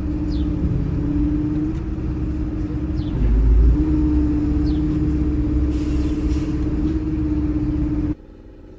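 A vehicle engine running with a steady drone and heavy low rumble. Its pitch dips and the rumble swells briefly about three seconds in. The sound cuts off shortly before the end.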